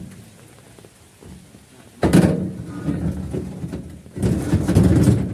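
A heavy steel machine frame scraping and rumbling across a metal truck bed as it is dragged on ropes, in two loud stretches starting about two seconds in.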